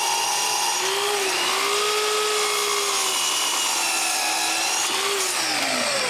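Miter saw cutting through a wooden block, the motor's whine bending up and down as the blade works through the wood. About five seconds in, the pitch starts falling as the blade winds down.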